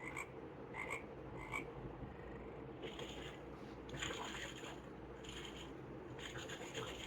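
Recorded frog croaking played faintly from a children's sound book's small speaker, short repeated calls, with brighter short bursts from about three seconds in.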